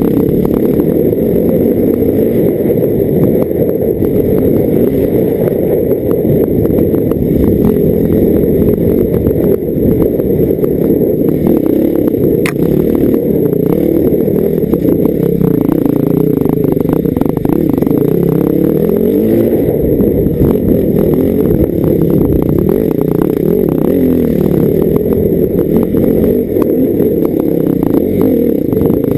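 Dirt bike engine running under way, its revs rising and falling as the rider works the throttle. One sharp click about halfway through.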